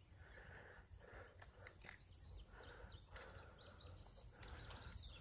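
Quiet outdoor ambience at a pond, near silent, with a cluster of faint high bird chirps in the middle and a few faint clicks.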